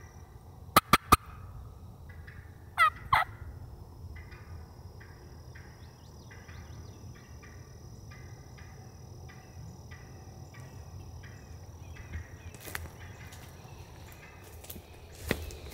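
Turkey calling: three sharp, loud clucks about a second in, then two loud falling yelps about three seconds in, with fainter calls later on. A steady faint high-pitched tone runs underneath.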